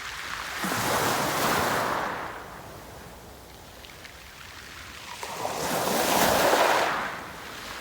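Sea waves breaking and washing on the shore, in two surges that swell and ebb, the louder one about six seconds in.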